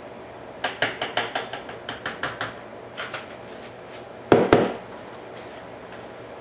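A small spice jar is shaken and tapped over a blender jar, giving a quick run of about a dozen sharp clicks, then a few more. About four seconds in, a louder double knock is heard as the jar is set down on the counter.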